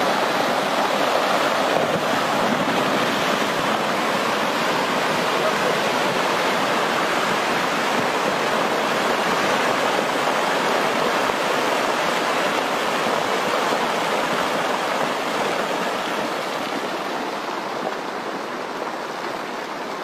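Steady rushing roar of a rockfall and avalanche, rock and snow pouring down a mountain face, easing slightly near the end.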